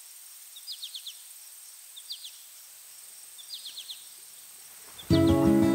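A songbird repeating a short phrase of a few quick high notes about every second and a half, over faint outdoor hiss and a thin steady high tone. Near the end, music starts abruptly and becomes the loudest sound.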